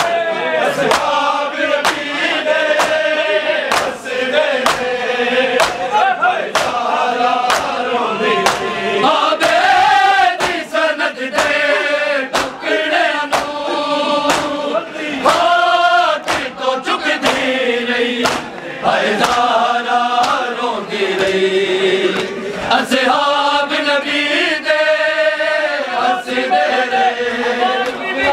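A group of men chanting a noha, a Shia mourning lament, in unison over steady, evenly spaced beats, the sound of matam, hands striking chests in time.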